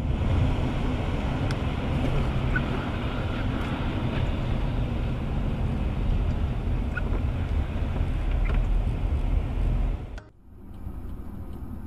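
Steady rumble of a car driving, with tyre and engine noise picked up by a dashcam microphone in the cabin. About ten seconds in it cuts off abruptly, and a quieter road noise from another dashcam clip follows.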